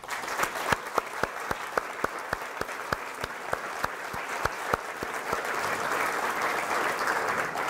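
Audience applauding, with one person's close, distinct claps at about four or five a second standing out over the crowd's clapping. The applause starts suddenly, swells, then begins to fade near the end.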